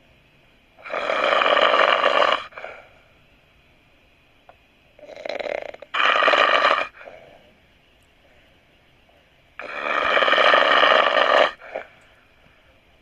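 A person snoring loudly: three long snores about four seconds apart, each lasting one to two seconds, the middle one broken into two parts, with near quiet between them.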